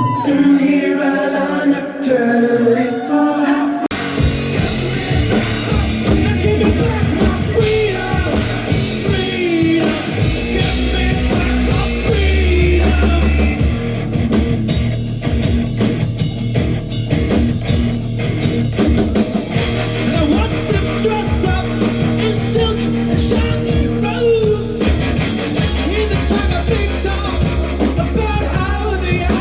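Live rock band playing loudly; the full band with bass and drums comes in about four seconds in.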